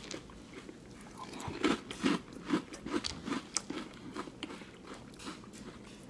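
A person chewing a mouthful of crunchy breakfast cereal in milk: a run of crisp crunches, strongest in the first half, then fading.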